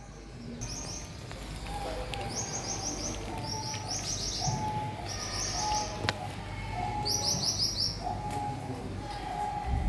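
Captive birds calling: bursts of quick, high chirps come about once or twice a second, over short, low cooing notes from doves that repeat about once a second.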